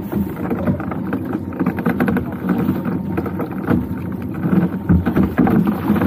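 Noise aboard a small open boat at sea: water against the hull and wind on the microphone, with irregular knocks and clatter on board.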